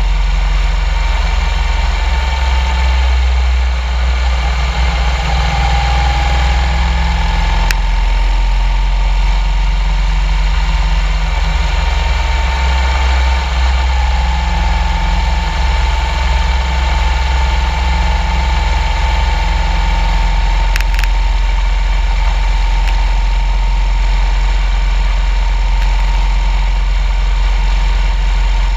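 Motorcycle engine running steadily at cruising speed, heard from the bike itself, with a thin high whine that drifts slightly in pitch.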